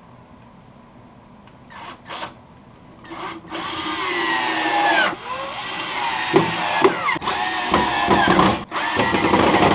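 Power drill working in wood: two short bursts, then a longer run from about three seconds in, its motor pitch sagging and recovering as it bites, with a couple of brief stops.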